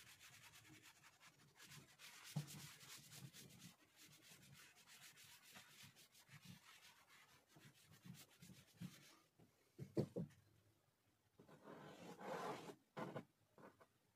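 Cloth duster wiping a chalkboard clean, a faint rapid rubbing that stops about nine seconds in. A single sharp knock follows, then short scratches of chalk writing on the board near the end.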